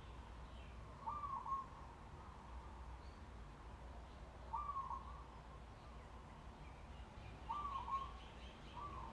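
A bird calling four times, each a short rise-and-fall call about half a second long, roughly three seconds apart with the last two closer together, over a faint steady low hum. Fainter higher chirps come near the end.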